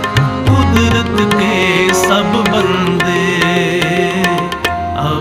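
Indian devotional music: tabla drumming under sustained, wavering melodic notes, an instrumental passage between sung lines.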